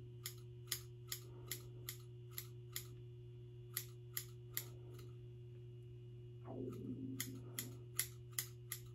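Scissors point-cutting into synthetic wig bangs: a run of short sharp snips about two a second, a pause, a few more snips, another pause, then a last run of snips near the end.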